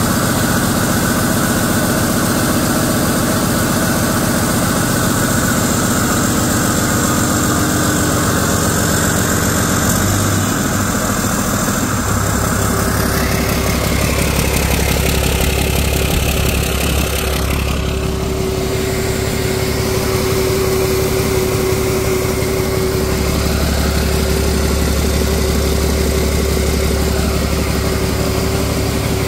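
2006 Mack AI 11.9-litre inline-six diesel engine (EGR model) idling steadily on a test run, out of the truck on a stand. About halfway through a steady higher whine joins the engine note.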